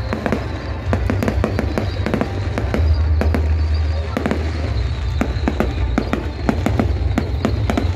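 Aerial fireworks display: shells bursting in quick succession, a dense run of sharp bangs and crackles over a continuous low rumble.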